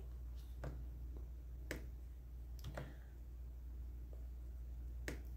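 A quiet pause with a steady low hum and a few faint, short clicks scattered about a second apart.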